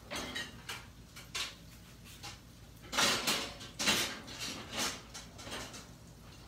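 Kitchen handling noises: a series of short clatters and scrapes, a few in the first second and a half and a busier run about halfway through.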